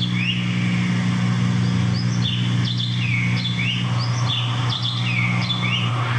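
Birds chirping, a repeated call of short downward-sweeping whistles about every second, over a steady low hum.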